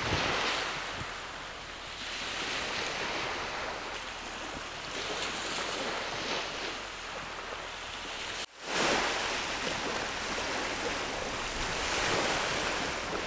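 Waves washing on a beach, a steady rushing wash that swells and eases, with some wind on the microphone. It drops out briefly about eight and a half seconds in.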